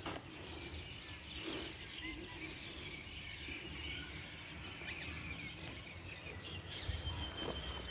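Faint outdoor background noise with small birds chirping now and then.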